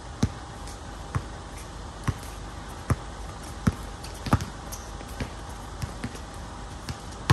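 A basketball being dribbled on a hard outdoor court: about nine sharp bounces at an uneven pace of a little under one a second.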